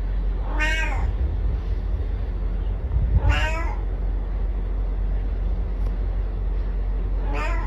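A cat meowing three times, a few seconds apart, over a steady low hum.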